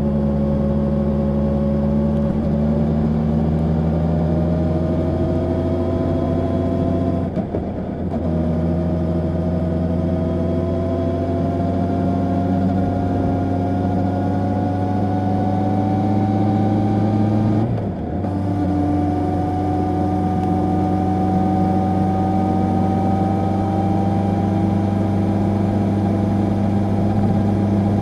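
Honda CB650R's inline-four engine through its stock exhaust, pulling steadily under load with its note climbing slowly. It breaks twice with a short dip, about 7 and 18 seconds in, as at gear changes.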